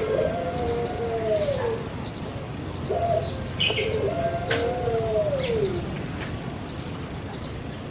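A dove cooing: two long, low coos, each one level at first and then arching up and falling away. Short, sharp high ticks sound between the coos.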